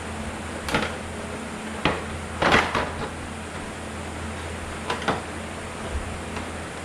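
Plastic scooter body panel being worked loose: a handful of sharp clacks and clicks as its clips let go and the panel knocks, the loudest cluster a little past two seconds in, over a steady low hum.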